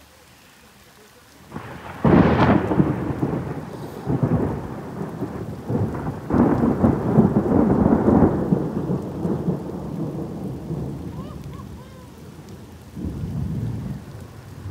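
Loud thunder breaking in about a second and a half in, then rumbling in several waves that die away over about ten seconds, with a smaller rumble near the end. Rain falls steadily underneath.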